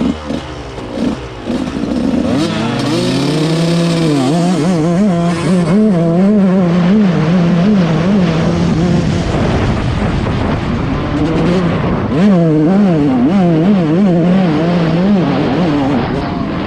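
Yamaha YZ 144 two-stroke motocross bike pulling away and riding, its engine pitch climbing about a second and a half in. It then revs quickly up and down over and over as the throttle is worked, easing briefly near the middle before revving hard again.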